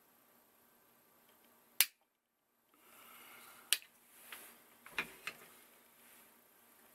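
Sharp clicks and taps as the magnetic levitation device and its stack of magnet discs are handled: one loud click about two seconds in, then a brief cut to silence, then several more clicks over the next few seconds.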